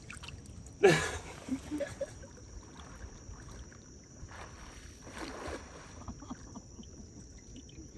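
Shallow water splashing: one sharp splash about a second in, then softer sloshing as a cast net is dragged back through the water by a wader.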